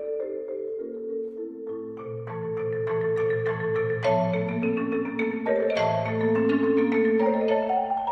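Marimba duet: two players with mallets playing fast rolled and repeated notes. A sustained middle line runs over low bass notes that come in about two seconds in, and the texture grows fuller and louder from about halfway.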